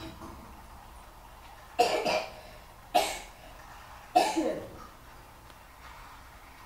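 A person coughing three times, about a second apart.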